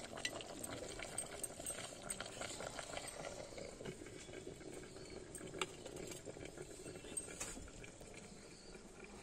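Chicken curry with potatoes boiling in a clay handi over a wood-fired chulha: faint, steady bubbling with a few light clicks as the clay lid and ladle are handled.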